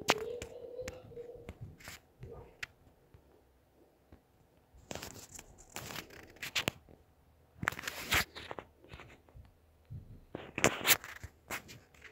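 Scattered rustling and crackling noises with sharp clicks, a handful of half-second bursts spread through; a child's humming tails off in the first second or so.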